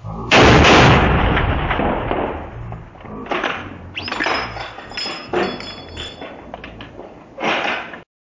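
A 7.62 mm bolt-action rifle shot: a sudden loud blast that dies away over a couple of seconds. Several quieter, irregular bangs and knocks follow, and the sound cuts off suddenly near the end.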